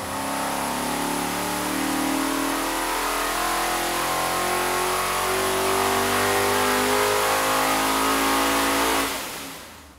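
R.M. Competition 450ci big-block Ford V8 (385-series, carbureted) running on an engine dynamometer: a steady, even engine note that grows slowly louder, then fades out about a second before the end.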